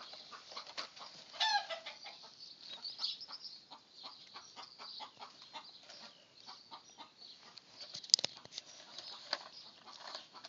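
Domestic hens clucking in short repeated notes, with one warbling call about a second and a half in. A single sharp knock near the end is the loudest sound.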